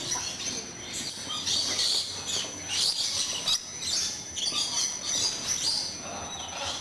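A flock of parrots calling, with many short, irregular chirps and squawks overlapping, over a thin steady high tone.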